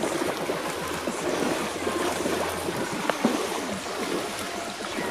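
Water splashing and churning, as of people wading and running through a river current.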